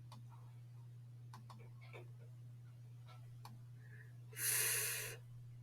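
A woman's voice holds a voiceless 'fff' hiss for just under a second, near the end, sounding the English /f/ consonant on its own. Beneath it is a low steady hum and a few faint ticks.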